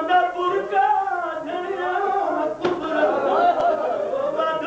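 A man's voice chanting a mourning recitation in a drawn-out, bending melody, with a short sharp click a little past halfway.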